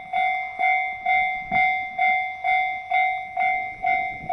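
Japanese railway level-crossing warning bell ringing 'kan-kan', a little over two even strokes a second, each stroke ringing on into the next.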